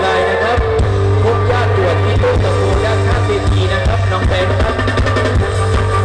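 Live stage band playing loud amplified music through a PA, with a heavy bass beat, drum kit and electric guitar.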